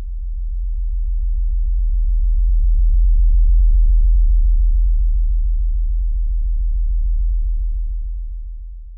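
Deep, low synthesized drone of a logo intro, a single bass tone that swells up, peaks near the middle and fades away near the end.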